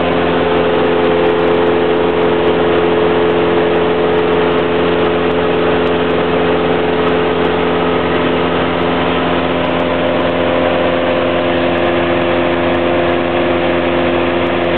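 Cessna 172's piston engine and propeller droning steadily in flight, heard from inside the cockpit, with no change in pitch or power.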